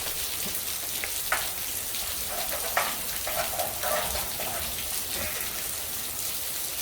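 Steady rain falling, an even pattering hiss, with a few light clicks and knocks about a second and three seconds in.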